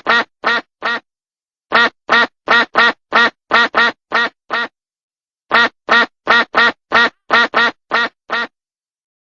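Duck quacking rapidly, about four quacks a second, in three quick runs with short pauses between them, then stopping about a second before the end.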